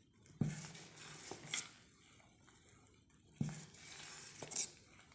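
A ladle stirring thick fermented ragi idli batter in a stainless steel bowl: a low wet stirring sound broken by several short dull knocks, the two loudest about half a second and three and a half seconds in.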